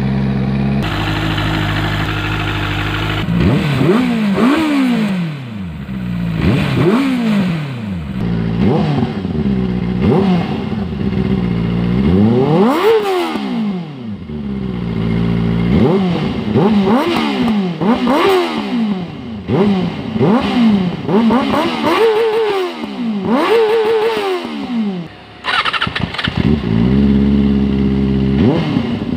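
Benelli 600i's inline four-cylinder engine idling, then revved by a long string of quick throttle blips, each rev rising and falling in pitch, before it settles back to idle near the end.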